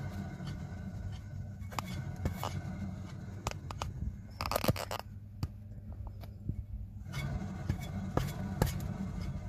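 Worn front wheel bearing of a BMW 5 Series E60 rumbling steadily as the hub and brake disc spin freely by hand; the bearing is due for replacement. Intermittent scrapes and ticks from the warped disc still brushing the brake pads, the loudest scrape about halfway through.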